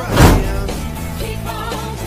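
Intro music with a sung melody over a steady bass line, opened by a short loud burst of noise about a quarter second in.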